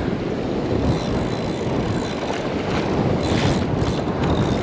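Wind buffeting the microphone over breaking surf washing up the beach, a steady rumbling rush.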